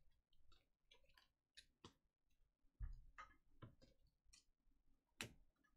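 Near silence: room tone with a few faint scattered clicks and ticks, the clearest about halfway through and one near the end.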